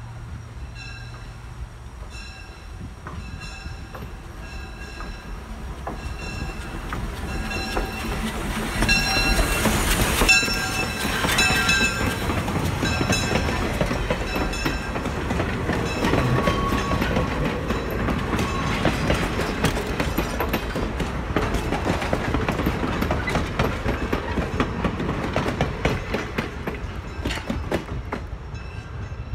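Steam locomotive Robert Dollar #3 approaching with a bell ringing at a steady pace, then passing close by, loudest about ten seconds in. After that, its train of open passenger cars rolls past with a steady rumble and clickety-clack of wheels over the rail joints.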